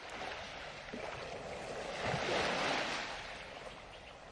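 Ocean surf washing in, swelling to its loudest about two seconds in and then easing off.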